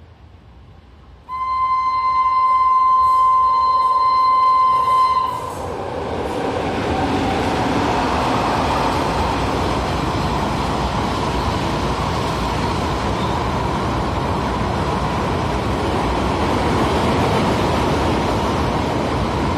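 WAG-9 electric locomotive's horn sounding one long steady blast of about four seconds. Then the steady rumble of a long rake of oil tank wagons rolling past on the rails.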